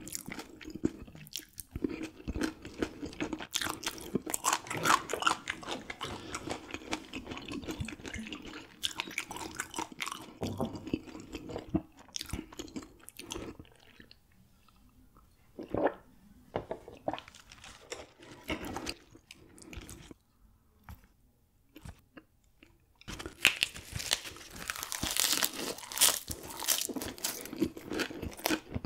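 Close-up chewing of raw gizzard shad, its small bones crunching between the teeth in dense, rapid crunches. The chewing goes quiet for several seconds in the middle, with only a few crunches, then loud crunching starts again near the end.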